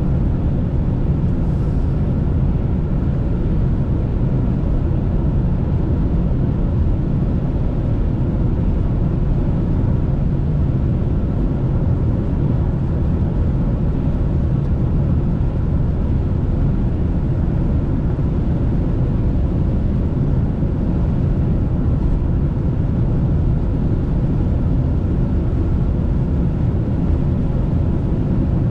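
Steady low rumble of a car driving at highway speed, heard from inside the cabin: road and engine noise with no change throughout.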